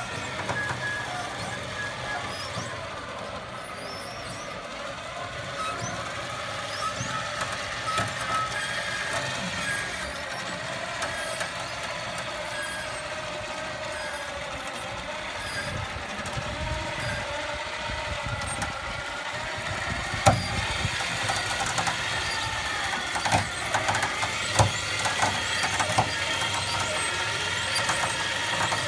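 Electric winch motor whining steadily as it reels in its cable under load, hauling a motorcycle on a wheeled dolly up ramps into a pickup bed. Several sharp clanks and knocks come in the second half, when the dolly reaches the bed.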